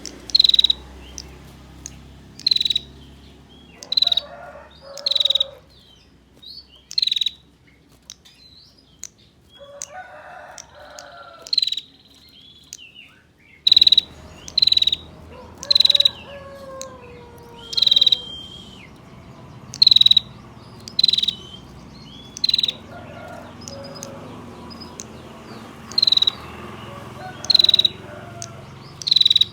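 Female bar-winged prinia (prenjak tamu) giving its 'ngetir' call: sharp, high 'tir' notes repeated about once a second, with a brief break in the middle. Fainter, lower bird calls come in between the notes now and then.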